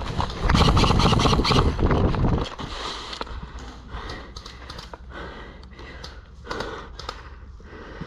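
An airsoft player's running footsteps and gear rattle, loud and rumbling for the first two and a half seconds, then dropping to quieter, irregular steps and clicks.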